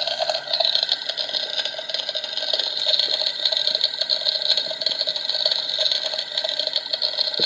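Toy grill's electronic sizzling sound effect, a steady crackling hiss played from its small speaker.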